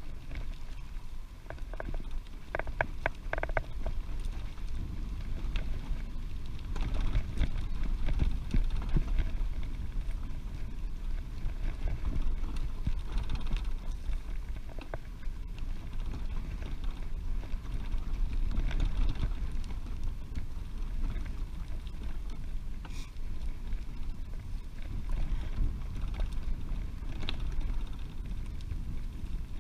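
Wind rumbling and buffeting on the microphone of a moving bicycle, rising and falling in strength, with a few short high chirps about two to three seconds in.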